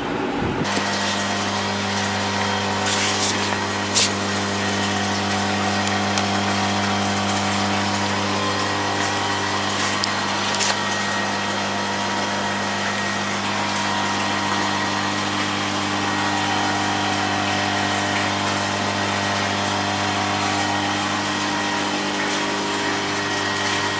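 Industrial machinery running with a steady hum and whir that sets in abruptly just under a second in, with a few sharp clicks over the first ten seconds.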